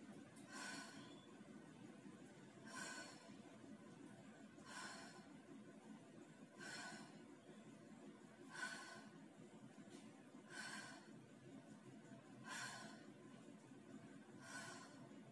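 Faint exhalations of a woman doing lunge reps, one breath out about every two seconds, each timed to a rep, over a low steady room hum.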